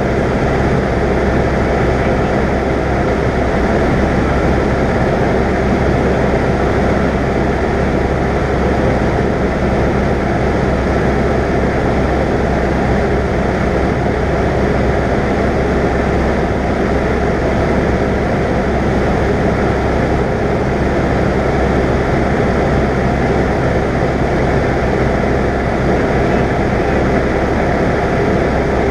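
Cessna 172's piston engine and propeller droning steadily in cruise, heard from inside the cockpit.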